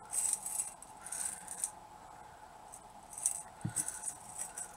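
Small metal craft findings clinking and rattling against a glass bowl as fingers sort through them. The clinks come in short clusters, busiest in the first second and a half and again around three seconds in.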